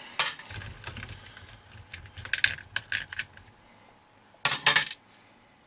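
Hard plastic and metal parts clicking and rattling as the motor and spur gear assembly is worked loose and lifted out of a BSD Racing Flux Onslaught RC car chassis: a sharp click at the start, a rattle about two and a half seconds in, and the loudest clatter about four and a half seconds in.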